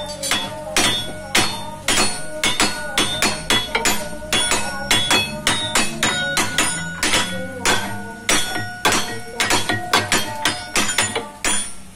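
Hand hammer striking the steel rotor parts of a sand crusher's hammer mill, about two to three ringing metal-on-metal blows a second, during a change of the mill's hammer blades.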